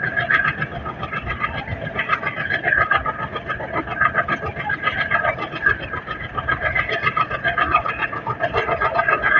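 Train running, heard from inside a coach: continuous rumble and rail clatter, with the drone of the WDM-3A ALCO diesel locomotive hauling it.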